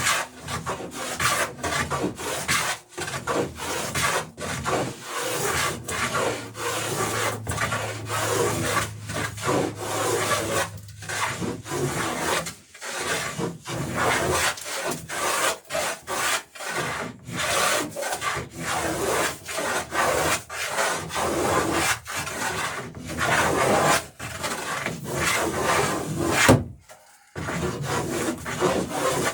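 Hand plane shaving wood in a long run of short strokes with brief pauses between them, beveling the edges of a wooden dory's lapstrake planks.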